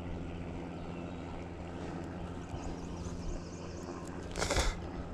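Steady low motor hum, with a short burst of rustling noise about four and a half seconds in.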